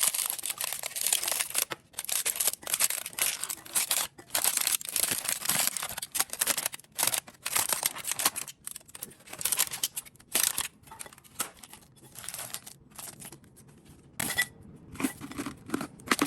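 Packaging being handled, crinkling and tearing in quick bursts that grow sparser after about ten seconds.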